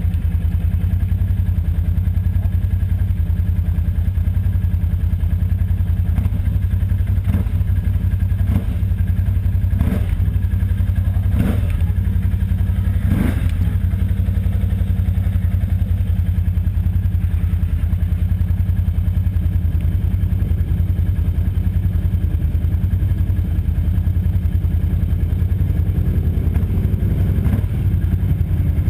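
ATV engine running with a steady low drone while the quad rides over a rough dirt trail. A handful of short clattering knocks come in the middle.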